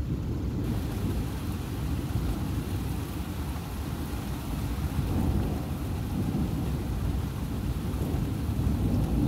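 Rolling thunder from a storm overhead, a continuous deep rumble that swells about five seconds in and again near the end, with a faint steady hiss over it.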